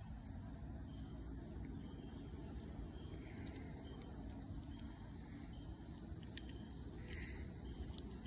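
Insects chirping outdoors: short, high-pitched chirps repeating about once a second over a steady low rumble of background noise.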